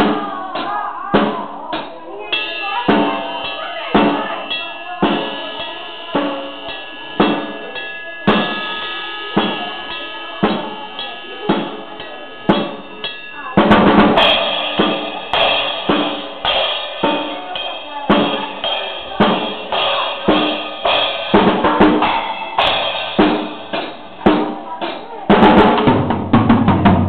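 A drum kit played in a steady beat of about two strikes a second, with cymbals ringing over the hits; it gets louder and busier about halfway through.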